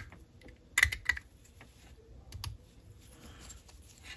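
A tool's back edge scrapes along a seam on a tiny plastic model-kit chassis part, giving a few sharp clicks and faint scratching.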